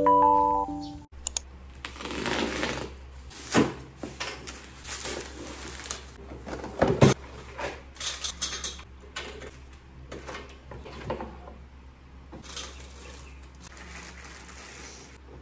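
Piano music stops about a second in, then unboxing sounds: cardboard flaps and plastic wrapping rustle, with scattered clicks and knocks as the plastic shelves and metal poles of a storage rack are lifted out and set down on a table, over a steady low hum.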